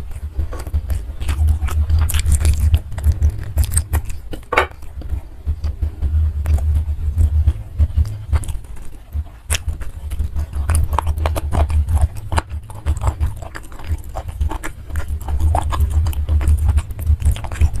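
Close-miked chewing and biting of a mouthful of food eaten by hand, with many small wet clicks and crunches throughout.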